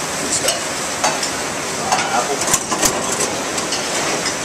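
Restaurant kitchen during service: a steady hiss of cooking and ventilation, with scattered clinks of pans and utensils.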